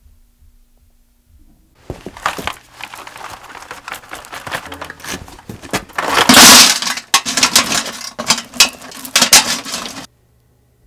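Old chainsaw chains rattling and clinking, the loose metal links clattering as they are handled and dropped into a steel bucket. The loudest clatter comes a little past the middle, and the sound cuts off suddenly near the end.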